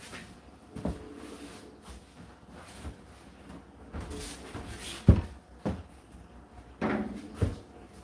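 Indesit IDC8T3 condenser tumble dryer running, with irregular dull thuds and knocks as laundry drops in the turning drum over a faint steady hum; the loudest thud comes about five seconds in, and two more come close together near the end.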